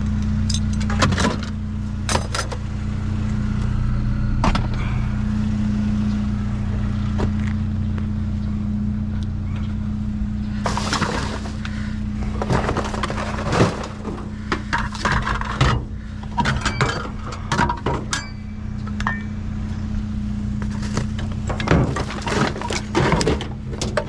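Small scrap metal and electrical bits being handled and tossed, many scattered clinks and knocks coming thicker in the second half, over a steady low engine hum.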